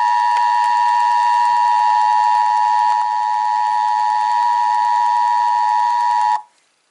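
Emergency Alert System attention signal: the steady two-tone alert (853 and 960 Hz) of a Required Monthly Test broadcast, cutting off abruptly near the end.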